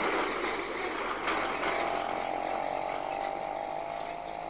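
A tram running on rails: a rattling rumble, joined about a second in by a steady high whine, both slowly fading as it moves away.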